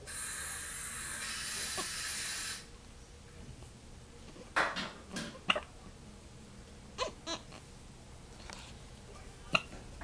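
Newborn baby hiccuping: several short, sharp hiccups a second or two apart, starting about halfway through. A steady hiss fills the first couple of seconds.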